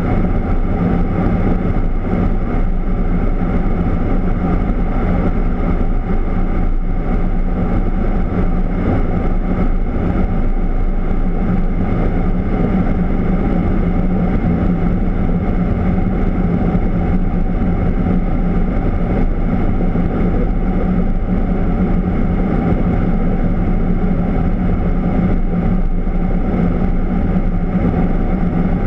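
Steady in-flight jet aircraft noise heard from inside the aircraft: an even rushing drone with a constant low hum that does not change.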